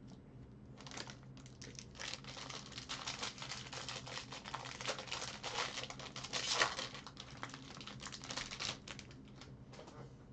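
Plastic and foil wrapping crinkling and crackling in quick, dense clicks as trading-card packs and cards are handled. It starts about a second in, is busiest through the middle and thins out near the end.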